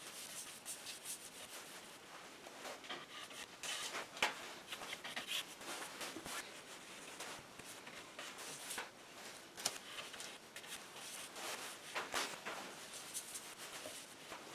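Bristle brush stroking over a wooden board, brushing on a coat of shellac: irregular soft scraping strokes, a few of them louder.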